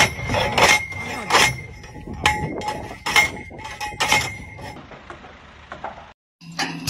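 Metal-on-metal clanks from a steel dock post being worked down by hand, about one strike a second, six strong ones and then weaker ones, with a short ring after each.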